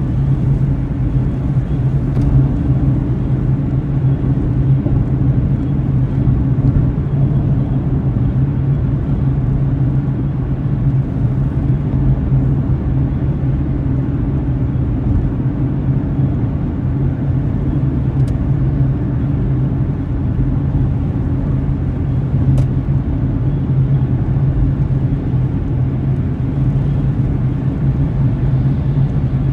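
Steady low drone of a car driving at an even speed, engine and tyre noise heard from inside the cabin.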